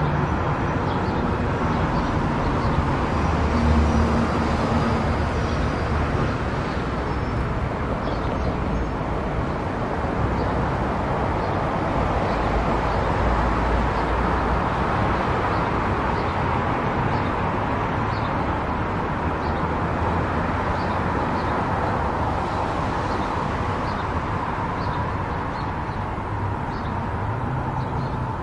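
A car driving along a road: steady tyre and engine noise with a low rumble, and faint light ticks about once a second.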